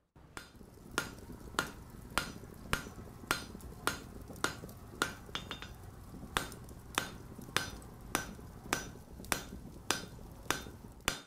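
Blacksmith's hammer striking an anvil at a steady pace, about one ringing blow every 0.6 seconds, with a short break a little past halfway.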